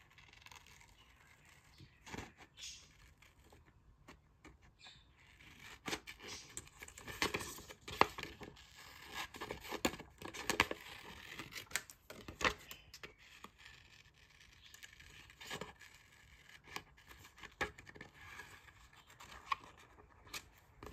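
Scissors cutting a glossy magazine page: many short, irregular snips with paper rustling, most of them from about six seconds in.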